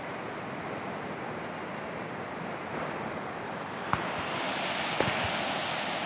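Surf breaking on a beach in rough sea: a steady rush of waves that grows louder about four seconds in, with two short knocks.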